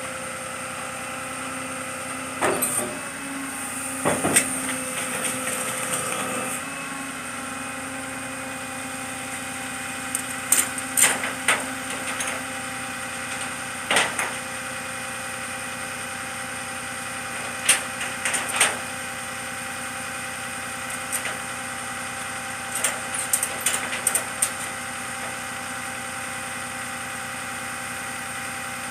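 Flatbed tow truck's engine idling steadily while the broken-down pickup is unloaded from its tilted bed. Sharp metallic knocks and clanks come in short clusters every few seconds, with a louder stretch of working noise a few seconds in.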